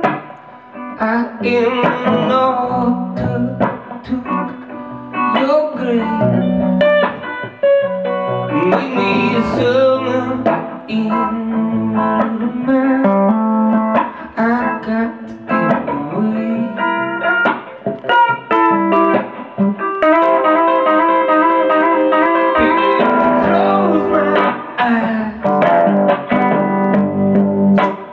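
Electric guitar played live, a continuous run of quickly changing picked notes and chords.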